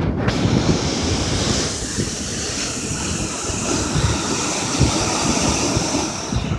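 Surf breaking and washing up a sandy beach, a steady hiss, with wind buffeting the microphone in irregular low gusts.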